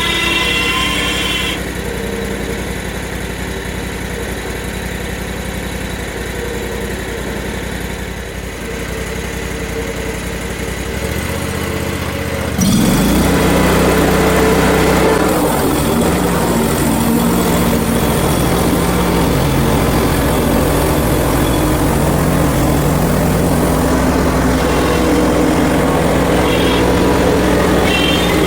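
Portable bandsaw sawmill's small gas engine idling, then throttled up about twelve seconds in and running steadily at high speed, louder.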